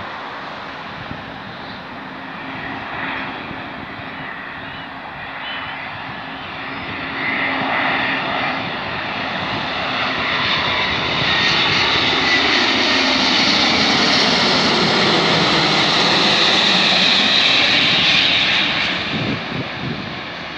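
Airbus A350-900 airliner's Rolls-Royce Trent XWB turbofans on final approach. The engine noise swells with a high fan whine about a third of the way in and is loudest past the middle. It drops in pitch as the aircraft passes close overhead, then fades near the end.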